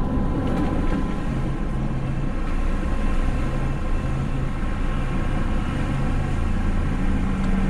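Steady rumble inside a trolleybus moving along a flooded street.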